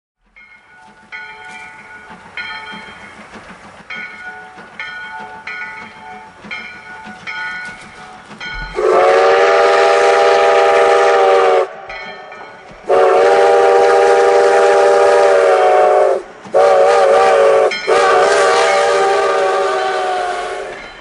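2-8-2 steam locomotive No. 15's bell rings steadily for about eight seconds as it approaches. Then its chime steam whistle blows two long blasts, a short one and a final long one, the standard grade-crossing signal, over the sound of the passing train.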